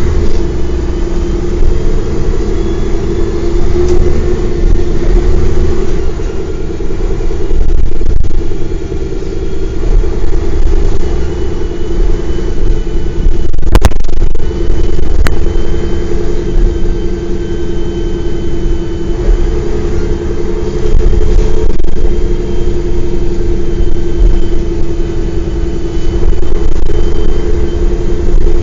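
Mercedes-Benz O405 bus's six-cylinder diesel engine running under way, its note rising and falling as the bus pulls away and eases off. There is a single sharp click about halfway through.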